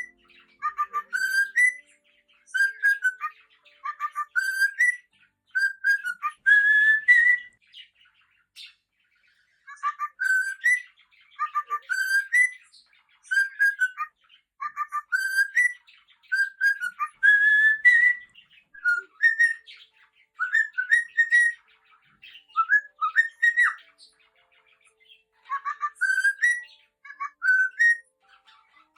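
Cockatiel singing: a whistled song of short, mostly rising notes in repeated phrases, broken by two brief pauses.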